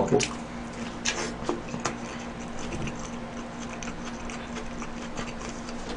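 A person chewing a mouthful of hamburger close to the microphone: soft, irregular wet clicks and smacks of chewing.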